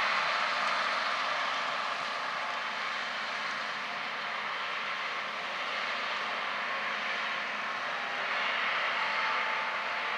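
Farm harvest machinery running steadily, a broad even machine noise that swells and eases slightly in level.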